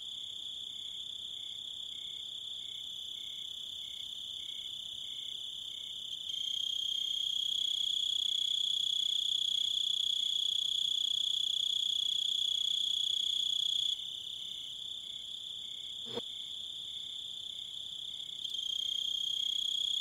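Cricket trill: one continuous high-pitched tone, steady in pitch, that grows louder for a stretch in the middle and again near the end. A single sharp click about sixteen seconds in.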